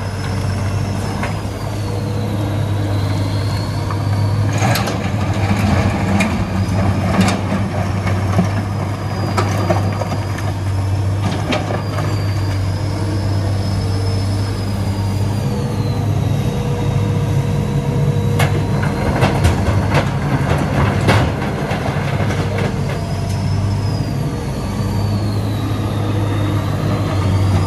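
Hitachi EX200 excavator's diesel engine running steadily under load, with a thin high whine that slowly rises and falls, while rocks clatter and knock into the steel bed of a dump truck in scattered bursts.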